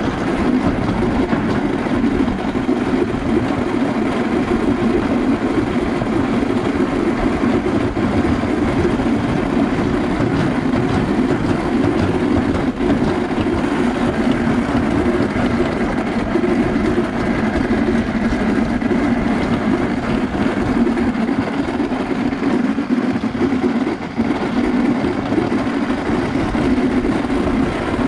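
Summer toboggan sled running down a stainless-steel chute: a steady, loud rumble of the sled on the metal track.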